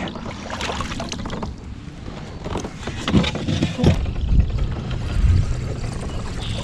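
Low, uneven thumps and rustling of gear being handled aboard a fishing kayak, with faint water sounds. The thumps come in from about three seconds in.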